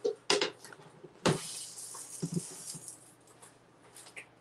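A metal pan and lid clattering as they are handled. About a second in there is a sharp knock, followed at once by a hiss that fades out over about two seconds, then a couple of low clunks.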